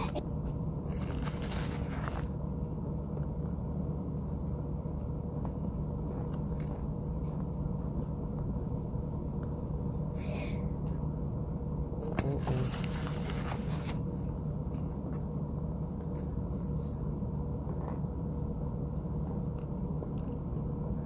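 Soft mouth sounds of someone chewing and working a mouthful of dry white powder, with a few brief noisy puffs and scrapes about one, ten and twelve to fourteen seconds in. A steady low hum runs underneath throughout.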